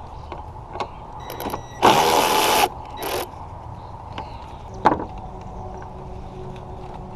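A small electric motor runs for under a second, then again briefly, among sharp clicks and knocks of work on parts under the hood.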